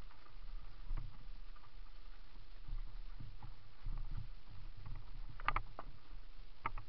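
Mountain bike rolling down a rocky forest trail: a steady low rumble from the tyres and frame, broken by irregular rattles and sharp clicks and knocks as it rides over stones, the loudest about five and a half seconds in and again near the end.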